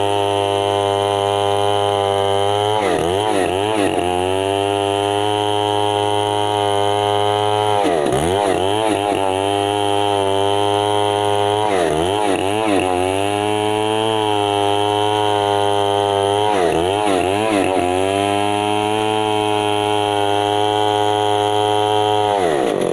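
Stihl MS 070 chainsaw's big two-stroke engine running at high revs, its pitch dipping and wavering briefly four times before steadying again. Near the end the revs drop away.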